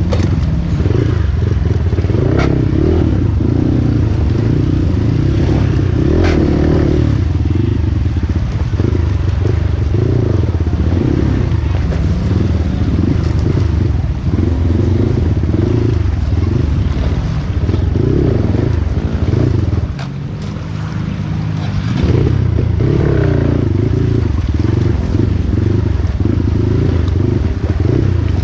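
Trail motorcycle engine running steadily while riding. It drops off briefly about twenty seconds in, then picks up again.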